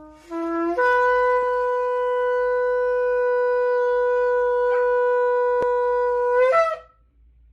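Shofar blown in one long blast. A brief lower note jumps up to a higher one that is held steady for about six seconds. It ends with a short wavering break and then stops.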